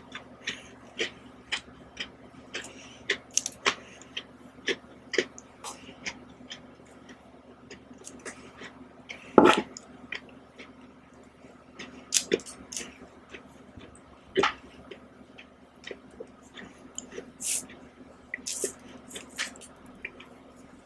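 Close-miked eating of soft ice cream: short mouth smacks about twice a second, thinning out later, with a few louder sharp clicks, the loudest about nine and a half seconds in.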